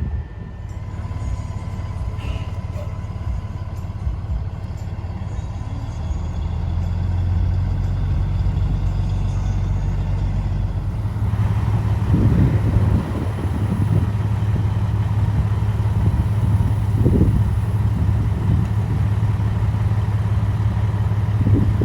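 Truck engine running and pulling away, growing louder over the first several seconds as it gets under way, with road and wind noise building from about halfway.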